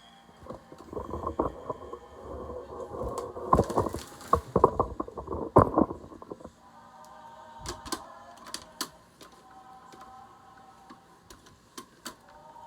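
Kitchen clatter: a busy run of knocks and clicks for the first six seconds, then a few scattered clicks, with music playing in the background.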